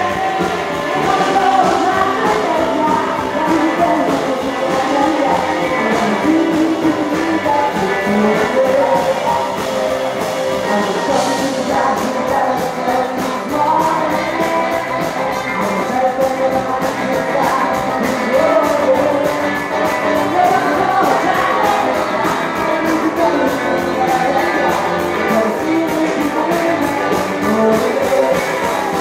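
Live rockabilly band music with singing and a steady beat, played loud.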